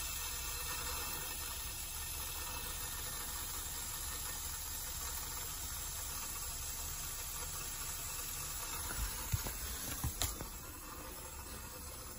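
Steady hiss of water running through the pipe-flow rig's tubing and rotameter flowmeter. A few soft knocks about nine to ten and a half seconds in as the camera is picked up and moved.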